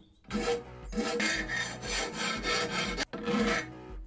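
Hand file scraping along the cut edge of a metal plate clamped in a vise, in repeated strokes to deburr the edge.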